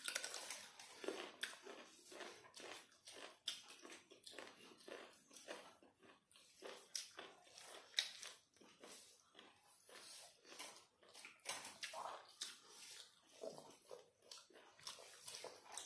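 Close-up eating sounds: chewing and wet mouth clicks of people eating rice and chicken curry with their hands, a soft, irregular run of small smacks and ticks.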